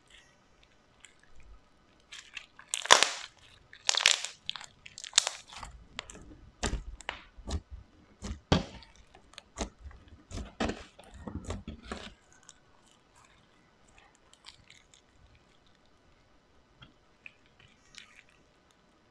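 Slime being squeezed and pressed by hand, giving a dense run of crunchy crackles and sticky pops for about ten seconds, then only faint occasional ticks.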